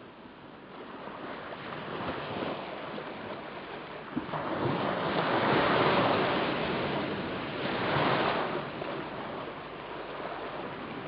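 Lake waves washing ashore: a steady wash that swells a little under halfway in and again briefly past the middle.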